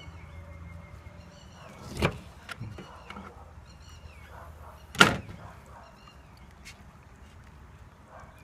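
Kitchen knife knocking on a plastic cutting board while pickled mustard greens are cut and handled: two sharp knocks about two and five seconds in, the second the louder, with a few lighter clicks between.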